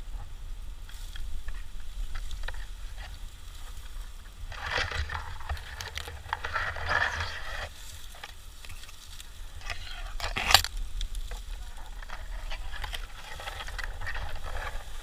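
Dry grass and brush rustling and crackling as a gloved hand grabs and pulls at it, with scattered small knocks and one sharp knock, the loudest sound, about two-thirds of the way through.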